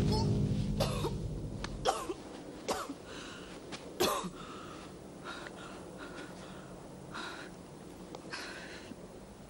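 A woman coughing and grunting hard from exertion, four sharp coughs or gasps in the first four seconds, then quieter heavy breathing. Background music fades out in the first two seconds.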